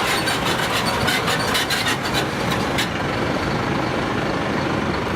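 Heavy truck engine running, with a rough crackling hiss on top that drops away about three seconds in.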